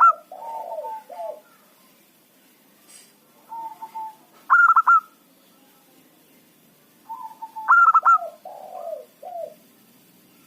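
Zebra dove (perkutut) cooing in three song phrases about three and a half seconds apart. Each phrase mixes a quick cluster of high staccato notes with lower, falling coos.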